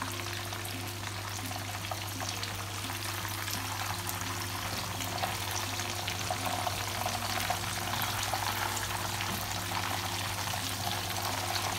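Breadcrumbed chicken breasts shallow-frying in hot oil in a pan: a steady, dense sizzle and crackle, with a low steady hum underneath.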